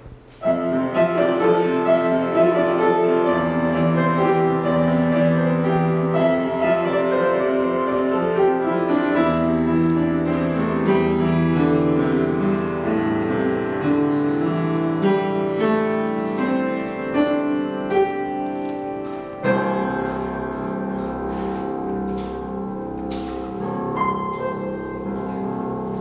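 Slow instrumental piano music with long-held notes. It starts about half a second in and moves into a new passage about three-quarters of the way through.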